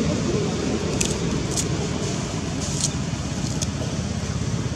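Steady low rumbling background noise, with four or five short, sharp crackles like dry leaves being disturbed.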